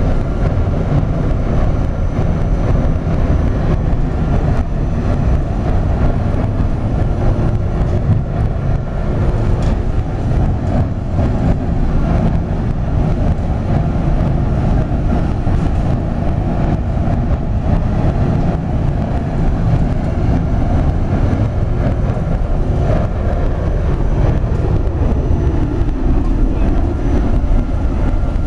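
Biomass burner at full fire, its flame jet and blower making a loud, steady low rumble without a break.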